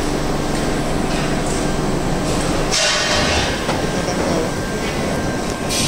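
Lost-foam foundry mould-handling machinery running: a loud, steady mechanical rumble and rattle, with short hisses about three seconds in and again near the end.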